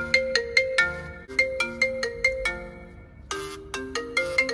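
Phone ringtone playing: a bright, repeating phrase of quick plucked notes that pauses briefly and starts over a little past three seconds in.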